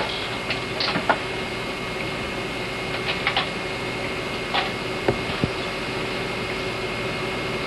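Steady hiss with a faint hum, the background noise of an old camcorder recording, broken by a few short, soft clicks and taps as toddlers handle toys and a paper card.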